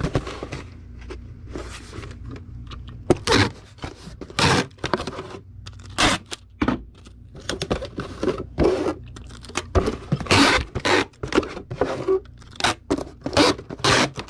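Hands handling a small cardboard shipping box and packing material while packing a DVD: a run of irregular scrapes, rustles and light knocks.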